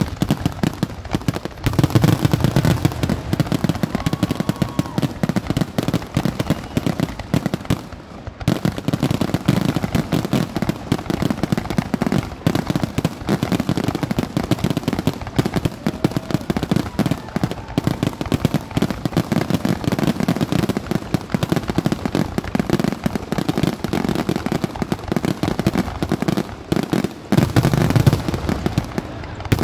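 Fireworks going off in a rapid, continuous barrage of cracks and bangs as many shots fire in quick succession, with a brief lull about eight seconds in.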